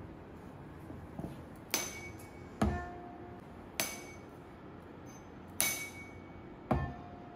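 A tuning fork struck five times, each strike a sharp knock followed by a brief ringing tone. Two of the knocks carry a deeper thud and a lower ring. The fork is being set vibrating to drive a sonometer wire to resonance.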